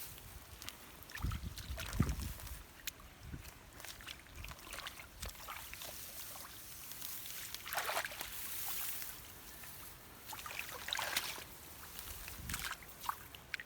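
Shallow muddy water sloshing and splashing, with scattered low thumps and two longer splashing surges, about 8 and 11 seconds in.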